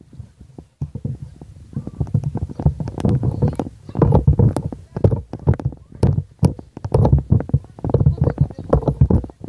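Wind buffeting the microphone: a loud, choppy low rumble with irregular knocks.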